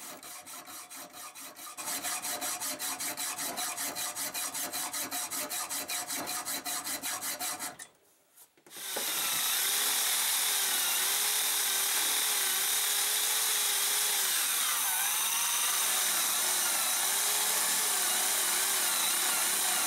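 Hacksaw cutting into a threaded steel pipe in a vise, lightly at first, then in quick even strokes about three a second. After a short pause about eight seconds in, a rotary tool's small cutoff disc grinds steadily into the pipe, its whine wavering as it bites.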